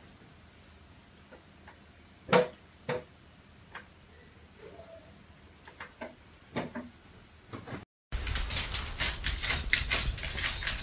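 A few scattered soft knocks and taps, the loudest about two seconds in, from a cat moving about on a bed. After a sudden cut about eight seconds in, a louder run of rapid clicking and scuffling from a small white dog scrabbling on a wooden floor.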